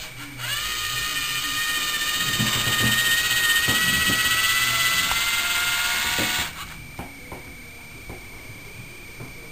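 Lego robotic arm's small electric motor and plastic gear train running, a steady high whine that rises slightly in pitch, starting about half a second in and stopping after about six seconds.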